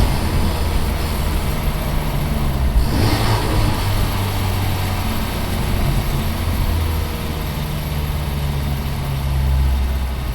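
Engine of an FL5 Honda Civic Type R, a turbocharged four-cylinder, running steadily as the car drives, with a constant low hum and road noise. A brief louder rushing sound comes about three seconds in.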